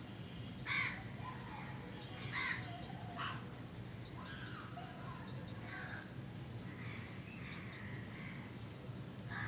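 Several harsh, crow-like bird calls: the loudest about a second in, two more soon after, and fainter ones later. Beneath them is a faint steady background, as a soft 8B graphite sketch pencil is rubbed in small strokes on paper.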